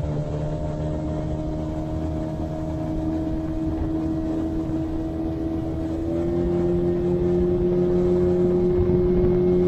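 Outboard motor pushing an inflatable boat, running steadily at low throttle while the engine is not yet warmed up. About six seconds in the throttle opens a little and the engine note rises slightly and gets louder.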